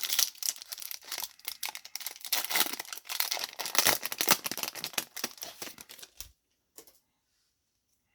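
Foil Yu-Gi-Oh! booster pack wrapper being torn open and crinkled, a dense crackling rustle that stops abruptly about six seconds in.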